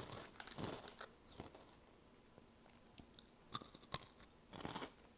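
Crunching bites into crisp Hot Cheetos, with a few sharp crunches about three and a half to five seconds in. A short crinkly rustle near the start fits a hand going into the chip bag.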